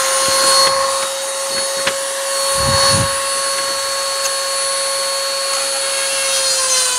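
EzzDoo rotary tool with a diamond bit running at a steady high whine while grinding a chainsaw cutter tooth. Near the end the pitch starts to drop as the motor slows.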